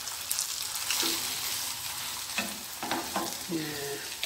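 Hot oil sizzling steadily under a thick egg-and-vegetable omelette frying in a nonstick pan, with a few short scrapes and knocks of a wooden spatula pressing it in the second half.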